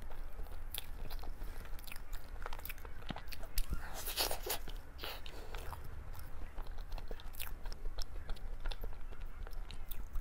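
Close-miked mouth sounds of someone biting and chewing cake: a string of small wet clicks and crunches, busiest about four seconds in.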